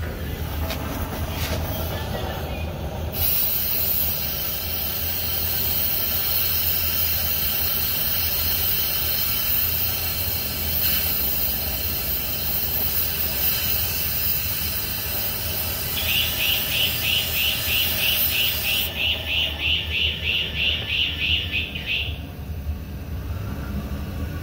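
Loud steady hiss of a trigger-gun wand blasting into a torch-heated two-stroke motorized-bike exhaust pipe to clear the burnt carbon. It starts abruptly a few seconds in and cuts off suddenly a few seconds before the end. A fast pulsing whistle joins over its last few seconds and outlasts it briefly, over a low steady hum throughout.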